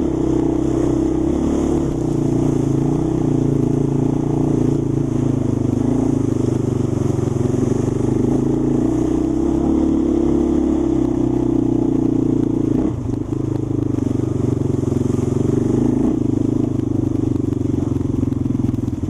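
Off-road vehicle engine running at a steady cruising speed along a muddy track, heard close up from on board, with a brief drop in engine sound about 13 seconds in.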